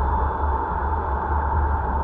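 Steady road and wind noise of a car driving, picked up by a dashcam: an even rushing hiss over a low rumble, with no change.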